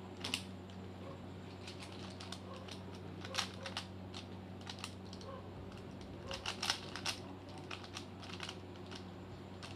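Plastic clicks of a stickerless 3x3 Rubik's cube being turned by hand: irregular light clicks with a few louder clacks, over a low steady hum.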